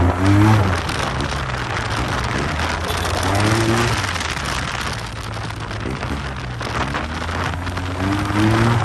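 Yamaha TMAX maxi-scooter engine running while riding, its pitch rising three times as the throttle opens: near the start, midway and near the end. A steady rush of wind on the microphone runs underneath.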